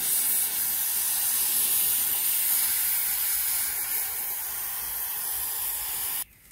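Aerosol freeze spray hissing in one long continuous burst, chilling the new steering-head bearing race so that it shrinks before it is driven into its seat. The spray cuts off suddenly near the end.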